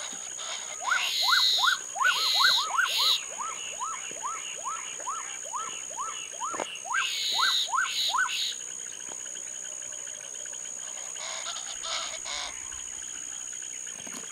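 Black-capped donacobius pair in duet display: a rapid run of loud rising whistles, about two to three a second, with harsh rasping bursts laid over them twice. The whistles stop about eight seconds in, leaving only a few fainter rasps.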